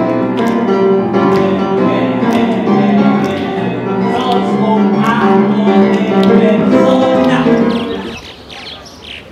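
Music with a steady beat stops abruptly about eight seconds in. Faint bird chirps follow near the end.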